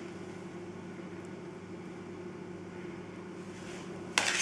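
Steady low hum of a kitchen appliance. Near the end, a sharp clink of a metal spoon against a dish as ricotta is scooped out.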